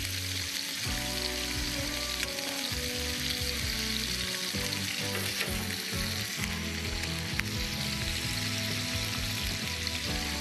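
Prawns sizzling steadily as they sear in hot oil in a frying pan, with a few light clicks as they are turned with tongs.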